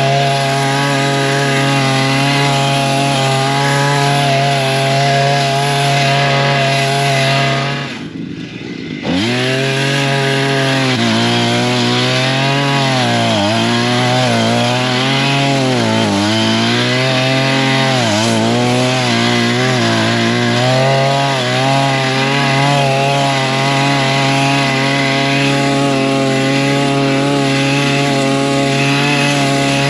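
Small gasoline engine of a wheeled, chainsaw-driven brush cutter running at high speed as its chain cuts dry grass and brush close to the ground. About eight seconds in the sound drops away for a second and the engine revs back up; later its pitch sags and recovers several times under load.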